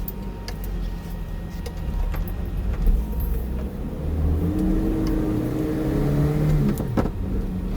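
Car engine running and pulling away, its pitch rising as it accelerates over a steady low road rumble, heard from inside the cabin. A sharp click comes near the end.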